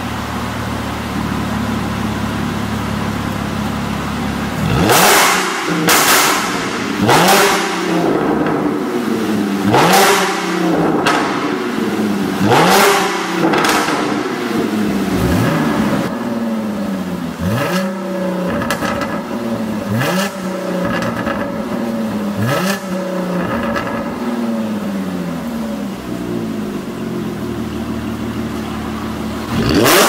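Audi RS7 twin-turbo V8 through an Armytrix turbo-back valvetronic exhaust, idling and then revved in about a dozen quick blips. Each rev rises sharply and falls back to idle, and the blips come in clusters of one to three.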